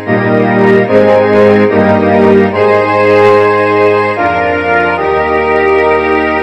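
Instrumental hymn tune played on organ with strings: held chords that change every second or so.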